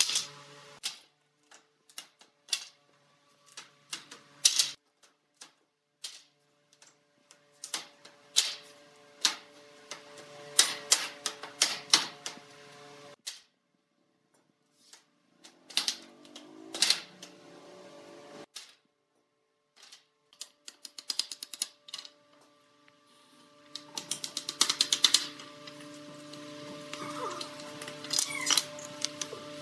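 Wooden pallet being pried apart with a long steel pry bar and loose boards handled on a concrete floor: irregular bursts of sharp knocks, cracks and wooden clatter, with two short quiet breaks. Near the end come faster runs of knocks as nails are worked out of the boards with a claw hammer.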